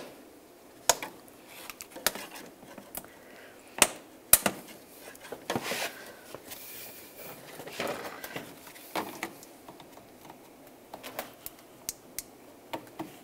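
Plastic wiring-harness retainer clips being pried off a plastic bumper cover with a trim tool: irregular sharp clicks and snaps, loudest at the start and about four seconds in, with scraping and rustling of the harness in between.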